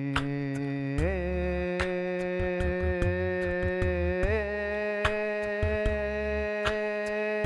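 Vocal toning on the out-breath: a long held tone. It glides up to a higher pitch about a second in, lifts again slightly near four seconds and slides down at the end, with short sharp clicks scattered through it.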